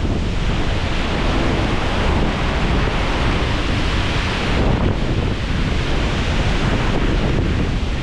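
Strong wind gusting across the microphone: a loud, steady rumbling rush that swells a little around the middle.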